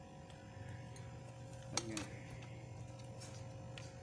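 Light clicks and one sharp tap from hands handling the opened heat gun's wiring and parts, over a steady low hum.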